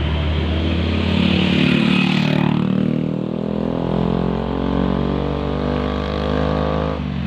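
Intercity bus's diesel engine running loudly as it passes close by, a steady droning hum over a deep rumble, dipping slightly in pitch near the end.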